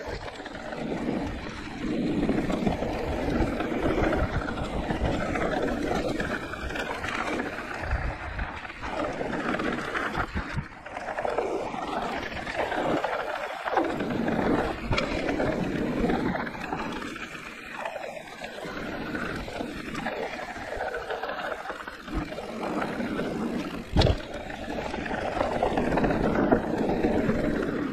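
Riding noise from a Giant Reign E+ e-mountain bike on a trail: wind buffeting the microphone over the rumble and rattle of the tyres on dirt, rising and falling with speed, with one sharp knock a few seconds before the end.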